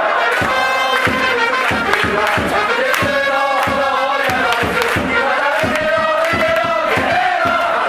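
Japanese baseball cheering section playing a player's cheer song: trumpets carry the melody over a steady drum beat while a crowd of fans sings the words in unison.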